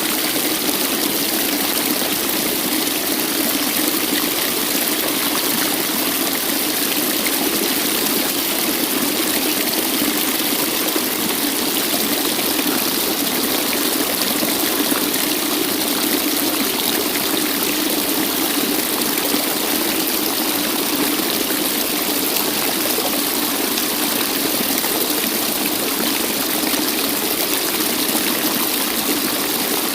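Waterfall: water falling and rushing in a steady, unbroken hiss with little low rumble.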